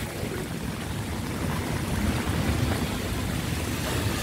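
Steady rain falling on a wet street and puddles, an even hiss with a low rumble beneath.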